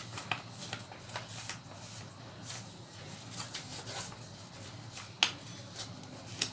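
Sheet of paper rustling and crackling as it is folded and creased by hand, with scattered crisp crinkles; one sharp crackle about five seconds in is the loudest.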